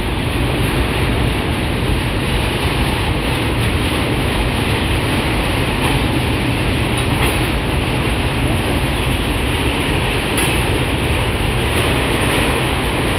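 Freight train of covered hopper wagons rolling past close by: a loud, steady noise of steel wheels running over the rails.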